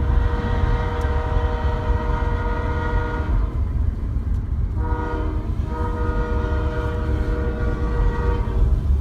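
Freight locomotive air horn with several notes sounding together, blowing two long blasts: the first about three seconds long, the second starting about a second and a half later and lasting nearly four seconds. A steady low rumble runs underneath.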